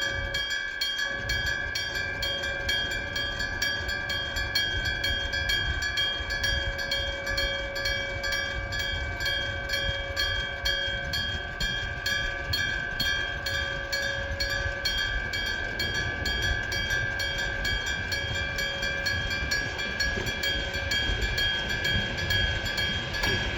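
Electric-bell level crossing alarm ringing on and on, with quick, even strikes, while a train rumbles through the crossing.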